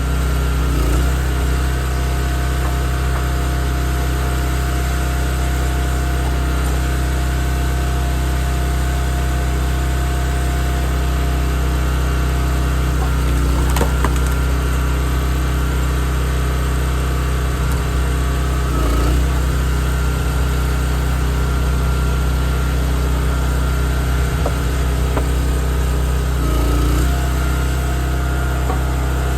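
Gas engine of a Wolfe Ridge hydraulic log splitter running steadily, its note shifting briefly a few times as the splitter works, with a single sharp crack about 14 seconds in.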